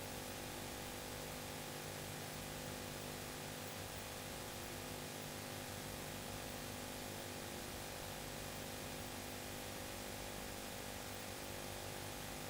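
Steady hiss with a constant low electrical hum, the background noise of VHS tape playback with no other sound on it.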